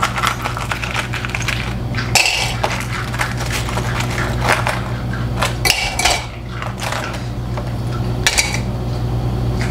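Ice cubes clinking and clattering against each other and a glass, a long run of irregular sharp knocks over a steady low hum.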